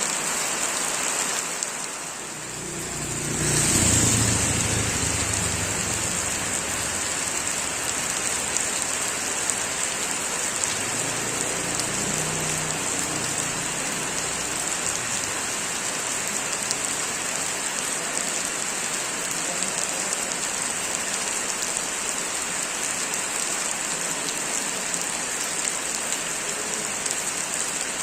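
Rain falling steadily on surfaces, a dense even hiss. About three seconds in, a low rumble swells and fades over a few seconds, and a weaker one follows a little later.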